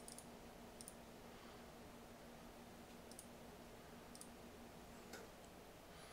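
A handful of faint computer mouse clicks, about five spread out, over near silence with a faint low hum that stops about five seconds in.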